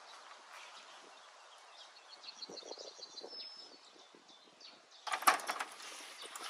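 Faint bird chirps over quiet outdoor background, then about five seconds in a sudden clatter of several knocks as the wooden shed door is handled.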